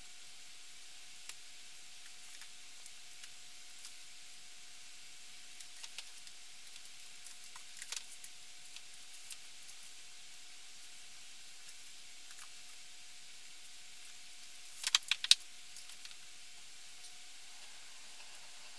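Books being handled and set on a shelf: scattered light clicks and knocks over a steady faint hiss and thin tone, with a quick cluster of sharper clacks about fifteen seconds in.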